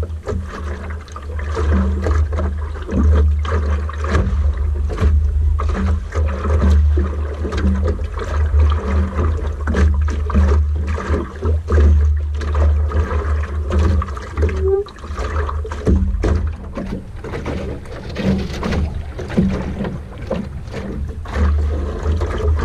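Wind buffeting the microphone with a deep, gusting rumble while water splashes and slaps against the hull of an Optimist sailing dinghy under way, with frequent short knocks.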